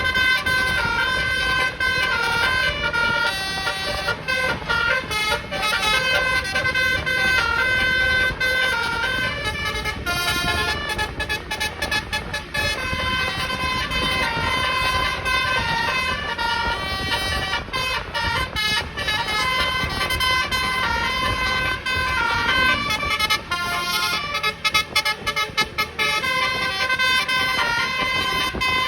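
Bus 'telolet basuri' multi-tone horn playing a tune of short, quick stepped notes without a break.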